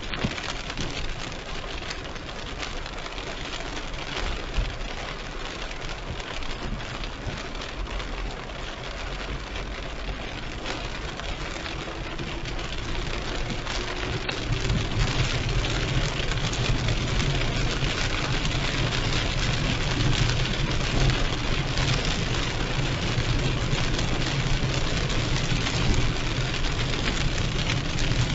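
Heavy rain falling on and around a moving car, mixed with the car's engine and the hiss of tyres on the wet road. A low drone comes in about halfway through and the whole sound grows louder.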